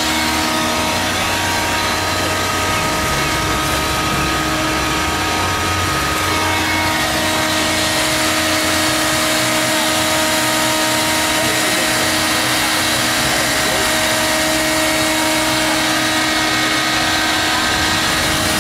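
Electric air blower running steadily: a loud, even whirring with several constant tones, its low rumble stronger for the first seven seconds or so. It is filling a clear plastic water walking ball with air.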